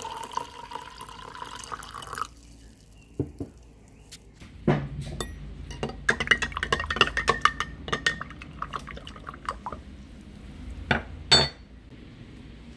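Liquid poured from a bottle into a glass jar for about two seconds, then a metal spoon stirring and clinking against the inside of the glass jar, ending with two sharper taps on the glass. The aluminum acetate powder is being dissolved to make a mordant bath.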